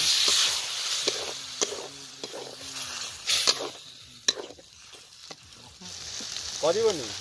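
Onions and spice masala sizzling and frying in an iron kadai, with a metal spatula stirring, scraping and clicking against the pan several times. The sizzle is loudest at the start, and a brief rising-and-falling pitched sound comes near the end.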